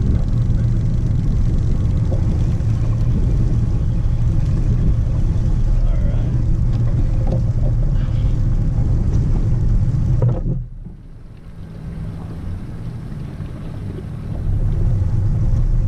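Steady low rumble of a fishing boat under way, its motor running with wind buffeting the microphone. About ten seconds in, the loudness drops suddenly for some four seconds, then comes back.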